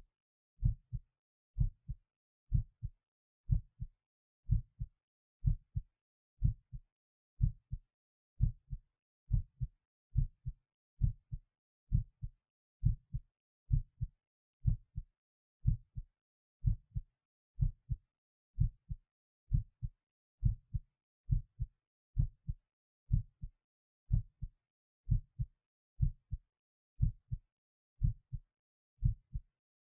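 Human heartbeat recorded over the apex of the heart: steady lub-dub pairs of low thumps, about 65 a minute, with silence between beats.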